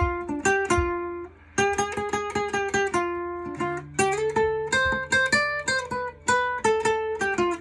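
Instrumental break in a country song: an acoustic guitar picks a solo line of quick single notes, without vocals.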